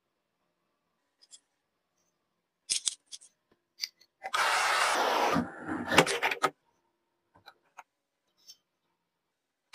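Metal parts of an old hammer drill being handled during restoration: scattered metallic clicks and clinks, with a loud hiss lasting about a second around the middle, followed by a quick run of clinks.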